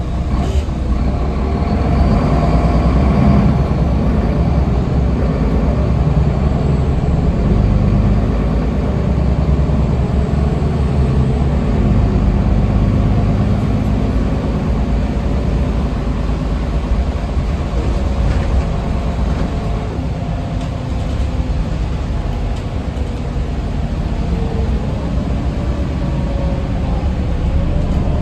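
Solaris Urbino III city bus running, heard from inside the passenger cabin: a steady low engine drone whose pitch rises and falls in places.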